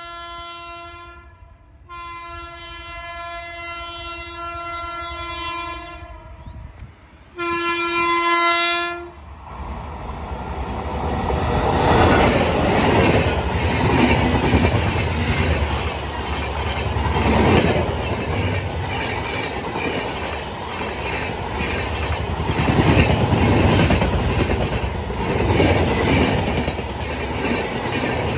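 Indian Railways express train's locomotive horn sounding on one note: a blast ending about a second in, a long blast of about five seconds, then a louder short blast. The train then runs past, with a steady rumble and a rhythmic clatter of wheels over the rail joints.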